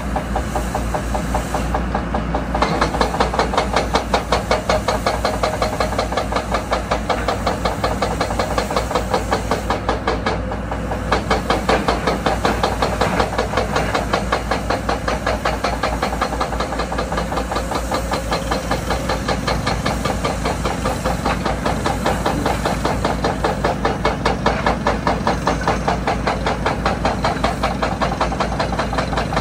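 Diesel engines of heavy construction machinery running steadily, with a rapid, even knocking rhythm.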